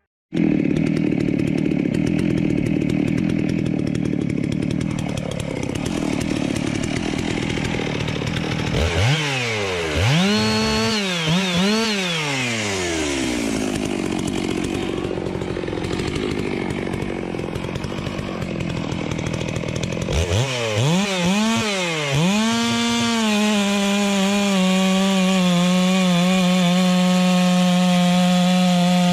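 Two-stroke gas chainsaw running loud and cutting wood. The engine revs up and down twice, about nine seconds in and again about twenty seconds in, then holds a steady high pitch near the end.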